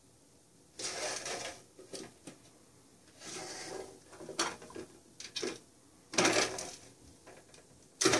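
A toy mouse being pushed by a cat's paw around the plastic circular track of a scratch-pad cat toy: several short bursts of plastic sliding and rattling, one about a second in and another about six seconds in, with the sharpest, loudest knock near the end.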